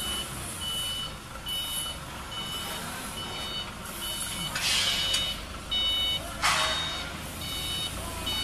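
Electronic beeper sounding over and over, a short high beep about every three-quarters of a second. Two short bursts of hiss come about halfway through.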